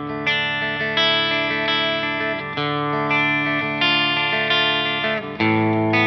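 Soloking MT-1 Telecaster-style electric guitar played through a clean tone, chords strummed in a steady rhythm of about one strum every 0.7 seconds, changing chord a little before halfway and again near the end.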